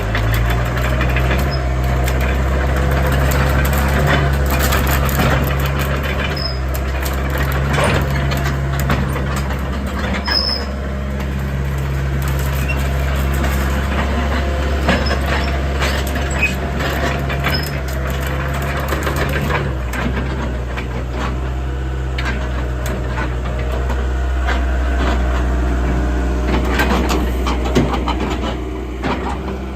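Doosan DX75 excavator's diesel engine running steadily, with scattered clanks and knocks from the machine. The engine note shifts about twenty seconds in.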